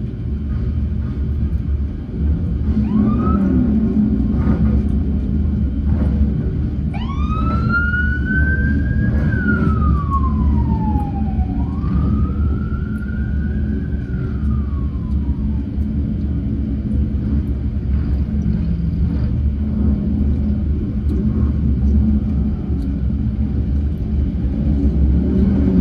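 Many big cruiser and touring motorcycles, mostly Harley-Davidsons, rumbling past at low speed in a long line. A police siren gives a short whoop about three seconds in, then wails up and down twice from about seven to sixteen seconds in.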